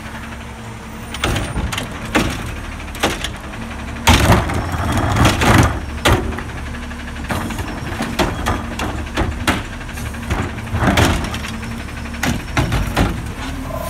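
McNeilus automated side-loader recycling truck's arm handling a wheeled recycling cart: repeated clanks and bangs of the cart and its contents over the truck's running engine, loudest about four seconds in.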